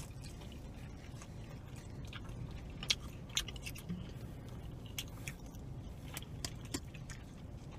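Close-miked chewing of a mouthful of pan crust pizza, with scattered short wet mouth clicks and smacks over a low steady hum.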